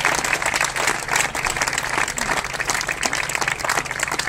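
Crowd applauding steadily, many hands clapping, with a low steady hum underneath.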